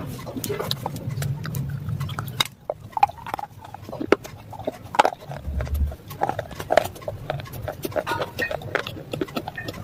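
Close-up mouth sounds of slate pencil being bitten and chewed: irregular sharp crunches and clicks, with wet mouth noises between them.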